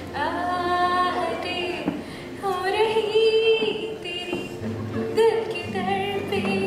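A woman singing a slow melody into a microphone, holding long notes, with an acoustic guitar accompanying her.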